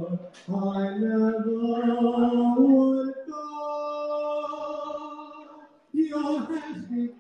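A teenage boy singing solo into a handheld microphone, amplified through a speaker. A phrase of moving sung notes, then a long held note about three seconds in that fades away, and a new phrase starting near the end.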